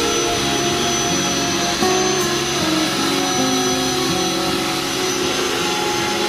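Long-reach electric drywall sander running steadily against a plasterboard ceiling, its sanding head and vacuum dust-extraction hose making an even whine and rush of suction.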